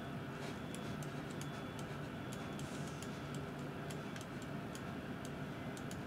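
Faint, light clicks from a computer mouse at an uneven pace, over a low steady hum.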